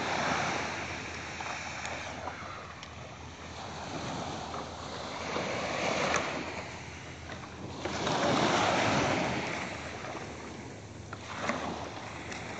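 Small waves breaking and washing up a sandy beach, swelling and falling back every few seconds.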